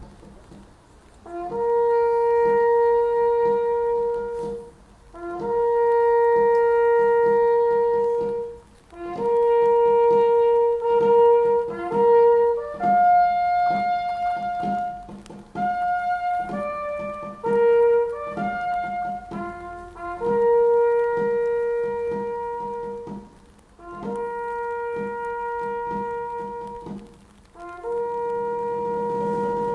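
A single brass instrument sounding a slow military call. It plays three long held notes, each led in by a short lower note, then a quicker run of higher notes in the middle, and ends with three more long held notes.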